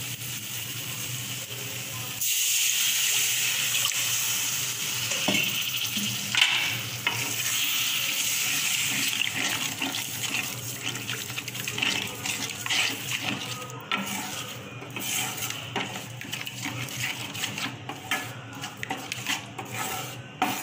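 Water poured into a hot aluminium kadai of oil-fried tomato and chilli-powder paste, setting off a sudden loud sizzle about two seconds in that slowly settles. A spatula then stirs and scrapes the pan as the thinned garlic gravy cooks, with scattered clicks against the metal in the second half.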